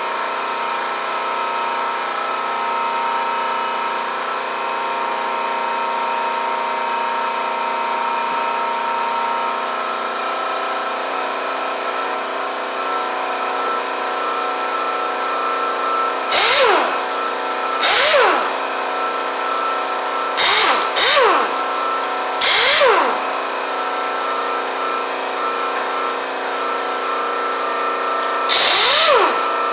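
Pneumatic air impact wrench loosening engine bolts in about six short bursts, starting about halfway through, each spinning up and down in pitch. A steady machine hum runs underneath.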